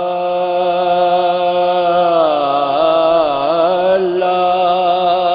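A singer holding one long drawn-out note, its pitch wavering in the middle: the opening of a sung marsiya, an Urdu elegy for Imam Husain's son Ali Akbar.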